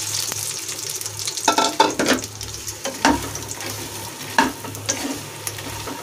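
Makhana (fox nuts) poured into hot ghee in a nonstick kadhai and stirred with a spatula: a light frying sizzle under scraping strokes, with several sharp taps of the spatula against the pan.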